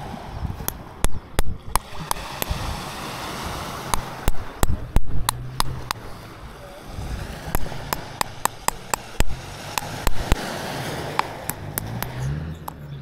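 Repeated sharp knocks and taps at an irregular pace, coming in clusters, as a cupboard fitting is struck to bend it into shape.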